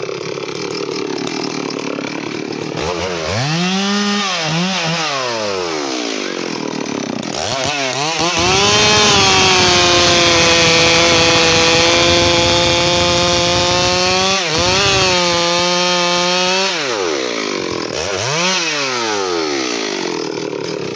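Stihl MS 382 two-stroke chainsaw cutting into a felled teak log. It revs up and down a few times, then holds high revs steadily in the cut for several seconds mid-way, and its revs fall back near the end.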